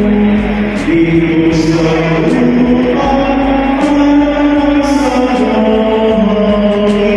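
Music with sung voices in a chant-like style, holding long steady notes that move from pitch to pitch in steps.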